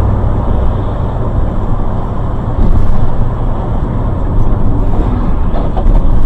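A car driving: steady, loud, low rumble of engine and road noise.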